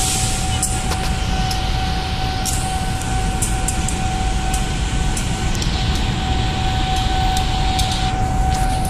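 Diesel locomotive running past at low speed, a steady rumble, with a steady high tone held throughout and a few sharp clicks scattered through.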